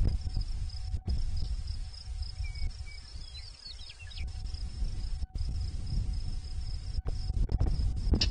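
Steady high-pitched insect trill, with wind rumbling on the microphone. A few brief chirps come around the middle.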